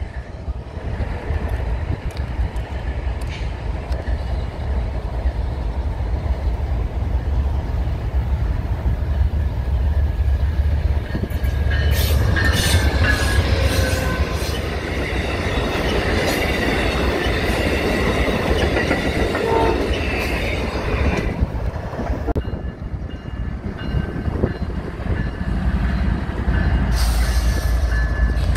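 A CSX diesel freight train and an Amtrak diesel passenger train passing at close range: a loud, steady low rumble of locomotive engines and rolling wheels. From about a third of the way in to about three quarters, there is a louder stretch of sharp metallic clanks and high wheel screeching.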